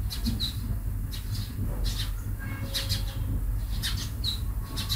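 Steady low hum with short, high bird chirps now and then.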